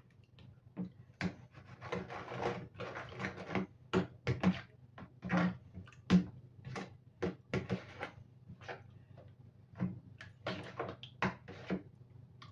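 Metal spoon stirring raw chicken livers in marinade in a plastic bowl: irregular clicks and scrapes of the spoon against the bowl, with wet mixing noise.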